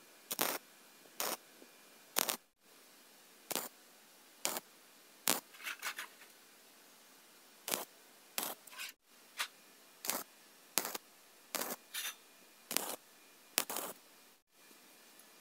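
MIG (wire-feed) welder tack-welding hollow steel tube: a string of short arc bursts, each well under half a second and about one a second, as the frame joints are tacked.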